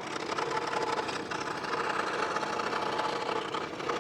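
Delta 16-inch variable-speed scroll saw running steadily, its blade cutting through half-inch plywood.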